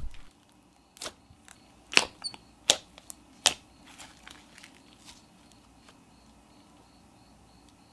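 Thick jelly slime with plastic boba pieces being pressed and poked by hand, giving sharp, short pops: about five loud ones in the first three and a half seconds, then softer ones that die away after about five seconds.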